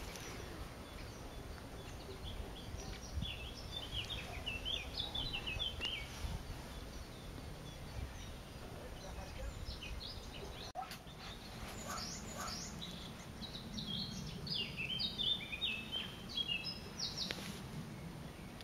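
Great spotted woodpecker nestling begging calls from the nest hole: runs of short, rapid, high chattering notes, one a few seconds in and a longer one in the second half, over steady background noise.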